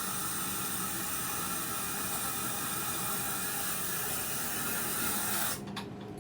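Aerosol can of smoke-detector test spray hissing in one long continuous burst, then cutting off suddenly about five and a half seconds in: canned test smoke being sprayed into a smoke detector to set it off.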